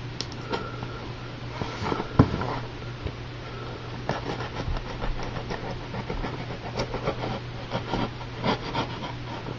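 A mail-order package being opened and handled by hand: rustling and scraping of the packaging with scattered clicks and small knocks, a sharper knock about two seconds in, over a steady low hum.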